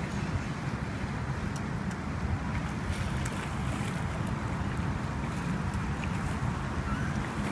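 Steady low rumble of wind on the microphone over water moving around a small boat.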